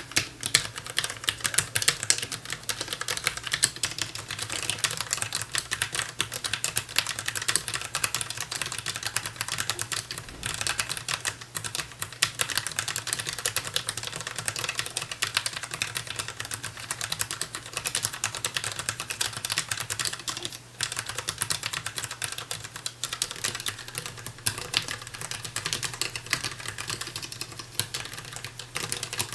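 Typing on a DAREU EK820 low-profile mechanical keyboard with Kailh low-profile red linear switches: a fast, continuous stream of keystroke clacks with only brief pauses.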